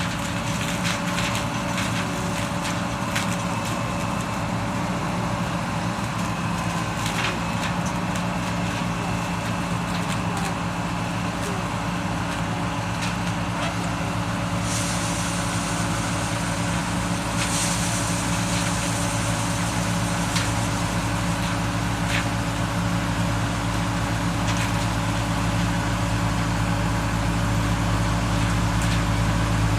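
Corn-harvest machinery running steadily, its engine giving a constant low hum, with scattered clicks and rattles and brief hissing spells.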